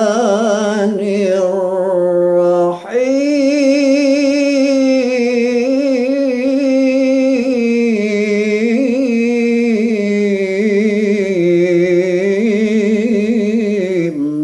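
A man's voice reciting the Quran in a slow, melodic tajwid style, each phrase stretched into long ornamented notes that waver and turn. There is a short breath break about three seconds in, then one long drawn-out phrase that ends right at the close.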